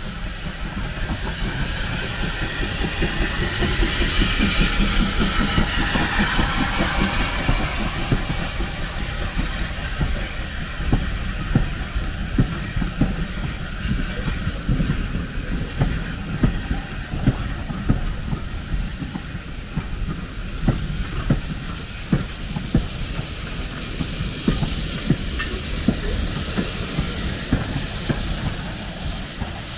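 Steam train running past with a steady rumble and a run of sharp clicks as its wheels cross rail joints. Steam hisses throughout and grows louder near the end.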